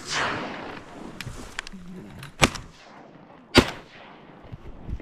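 Three shotgun blasts at a duck, each echoing across the water: one at the very start, another about two and a half seconds in, and the loudest about three and a half seconds in.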